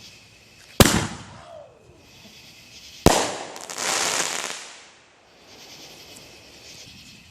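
Two sharp consumer firework bangs about two seconds apart, the second followed by a second or so of crackling.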